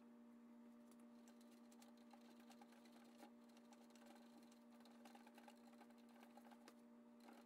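Near silence: a faint steady hum, with light scuffing from a cloth wiping a painted steel car cowl panel.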